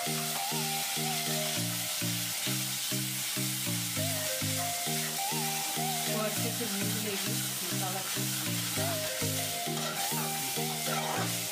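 Onion-tomato masala paste sizzling as it fries in oil in an aluminium kadhai, stirred with a steel ladle. Background music with a steady, repeating note pattern plays underneath.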